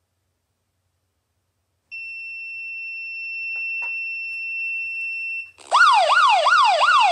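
About two seconds in, the Shelly Flood Gen 4 water-leak sensor's buzzer starts a steady high beep, its alarm for water touching the sensor wire. Near the end, a loud wailing siren alert starts on top of it, rising and falling about three times a second. This is the smartphone's emergency alert for the detected leak.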